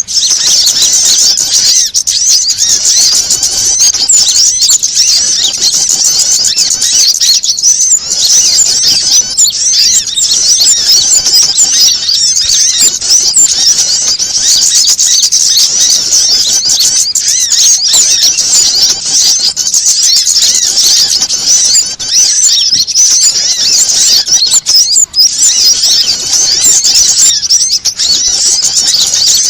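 Dense, unbroken chorus of small songbirds chattering and calling in agitation, high-pitched and loud: a mixed bird-lure recording of prinias, female sunbird and panicked sunbird calls, used to draw wild birds in for trapping.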